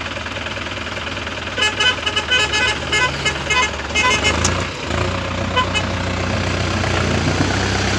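Vehicle engines running under load as a tractor tows a pickup up out of mud on a rope. About one and a half seconds in, a vehicle horn sounds a rapid string of short toots for about two and a half seconds. Then the engine note dips briefly and comes back stronger.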